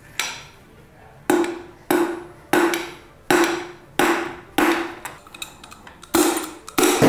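A piston and rod being knocked out of a corroded cylinder bore in a Toyota 2JZ engine block: about ten sharp knocks, roughly one every two-thirds of a second, each with a short metallic ring. The piston is sticking in the bore because of the corrosion.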